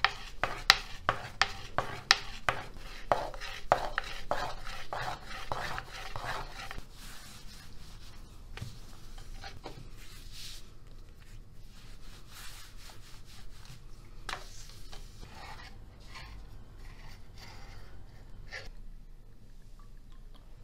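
Thin wooden rolling pin rolling out hand-made pastry dough on a marble counter: a quick run of sharp knocks, about two a second, in the first few seconds, then a softer rubbing swish of the dough sheet being rolled on the pin, with occasional light taps after.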